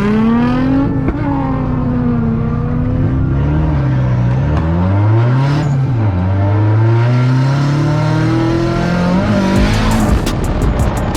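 Car engine revving hard, its pitch rising and falling several times. A rapid run of sharp clicks starts near the end.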